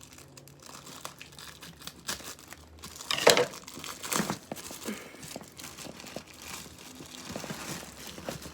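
Crinkling and rustling of packaging as a new handbag is handled, with a louder crackle about three seconds in.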